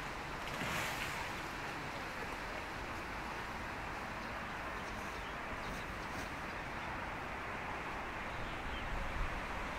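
Steady outdoor ambient noise: an even rush with no distinct events, and a few faint ticks about five to six seconds in.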